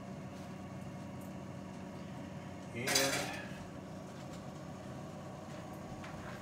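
Metal cookware clattering once about three seconds in, a short ringing clank, over a steady low hum.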